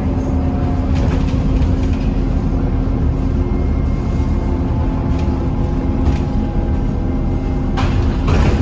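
Scania N230UD double-decker bus heard from the upper deck while under way: a steady engine and driveline drone with low rumble and a faint whine that climbs slowly in pitch. A brief rattle comes twice near the end.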